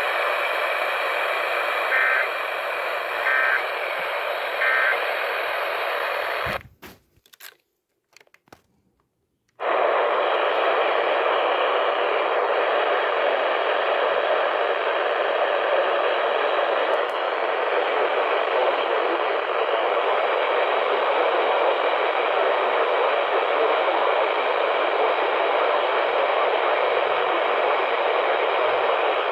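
Radio receiver static on a weather-radio channel, carrying three short two-tone data bursts about a second and a half apart: the EAS end-of-message code that closes the warning. The hiss then cuts out for about three seconds with a few clicks, and steady static returns.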